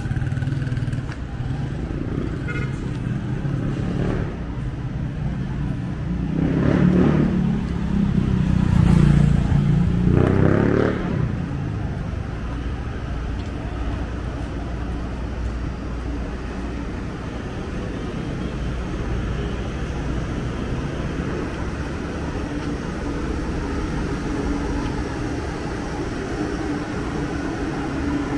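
City street traffic at night: a steady hum of engines and tyres, with vehicles passing close and loudest from about six to eleven seconds in.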